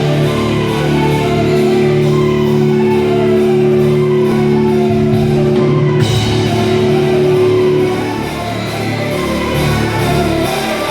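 Loud amplified live rock music from a band soundcheck, ringing in a large hall, with several held low notes that stop about eight seconds in.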